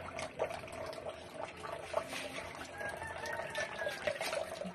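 A thin stream of water trickling from a pipe into a basin already full of water, with a steady splashing and small drips.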